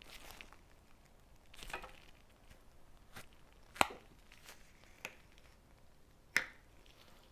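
Hands squishing and cutting a soft play material such as slime or kinetic sand close to the microphone: scattered soft squishes and crisp snaps. The two sharpest snaps come about four seconds in and again near six and a half seconds.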